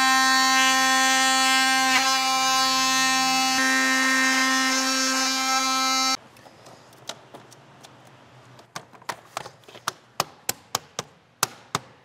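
Cordless oscillating multi-tool running with a steady buzz as its blade cuts through a plastic Ribtrax floor tile, stopping suddenly about six seconds in. Then a run of sharp plastic clicks, coming faster toward the end, as interlocking floor tiles are pressed and snapped into place.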